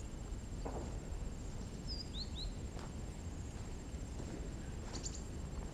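Quiet outdoor ambience with a low wind rumble. About two seconds in, a small bird gives a few short, high chirps that fall in pitch, and a few faint clicks sound here and there.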